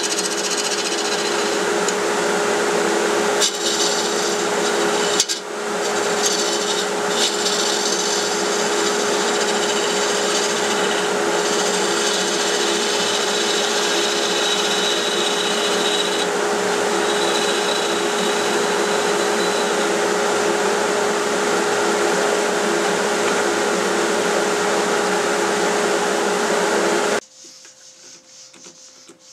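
Wood lathe spinning a hard oak blank while a turning tool cuts it down to diameter: a steady scraping hiss of the tool on the wood over the lathe's hum, with two brief breaks a few seconds in. It stops abruptly near the end.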